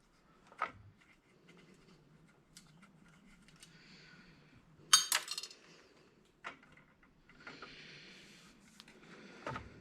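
Small metal parts and sheet metal clinking and clattering as an electronic console is taken apart by hand. There are a few scattered knocks, a sharper metallic clatter of several quick strokes about halfway through, and a light rustle and a thump near the end.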